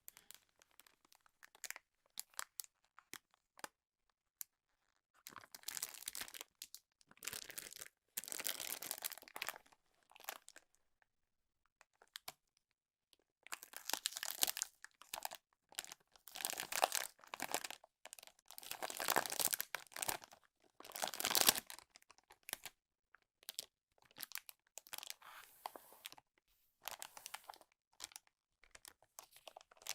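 Packaging wrap being handled, crinkling and tearing in irregular bursts of a second or two, with small clicks and short pauses between. The loudest stretch comes in the middle.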